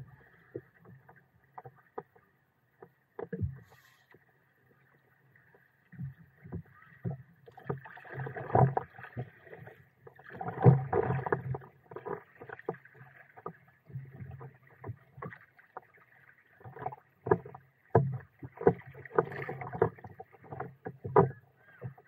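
Paddle strokes and water splashing and slapping against the hull of a stand-up paddleboard, in irregular clusters of short splashes and knocks. Sparse for the first few seconds, busier from about six seconds in.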